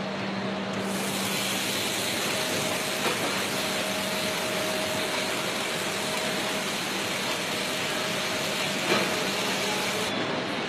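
Steady machinery noise of an automated casting production line: an even hiss with a faint steady hum, and a sharp knock about nine seconds in.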